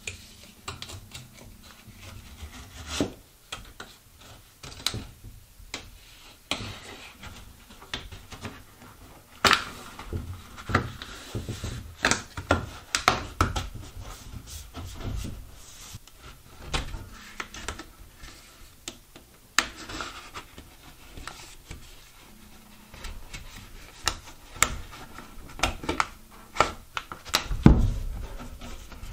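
Vinyl J-channel trim being fitted and pressed onto a drywall edge around a metal dryer vent box: irregular clicks, taps and rubbing of plastic, with a heavier thump near the end.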